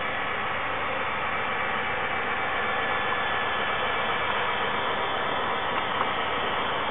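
HO-scale diesel locomotives with DCC sound decoders running steadily, their small speakers giving a constant diesel engine drone over a hiss, with no change in pitch or level.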